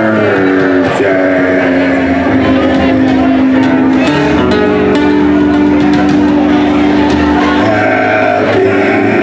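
Live band playing an instrumental stretch of a song, acoustic guitar with bass and drums, with long held notes sustained over them.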